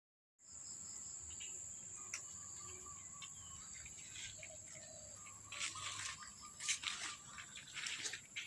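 Outdoor tropical ambience: a steady high-pitched insect trill, with scattered short bird chirps. From about halfway in, louder short bursts of rustling noise come in.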